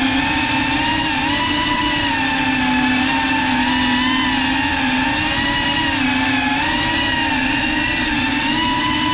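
GEPRC Cinelog 35 ducted cinewhoop drone's motors and propellers buzzing in flight, heard up close from the GoPro riding on it. The pitch of the whine wavers up and down with the throttle.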